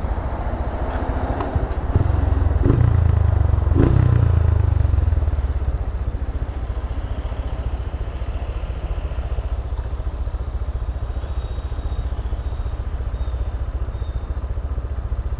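Motorcycle running on the road, its low engine rumble mixed with wind noise at the rider's microphone. It swells louder for a few seconds about two seconds in, with a couple of sharp knocks, then settles back to a steady drone.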